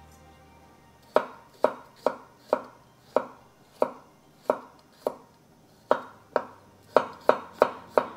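Kitchen knife slicing garlic cloves on a wooden cutting board: sharp knocks of the blade against the board, starting about a second in at roughly two a second and coming faster near the end.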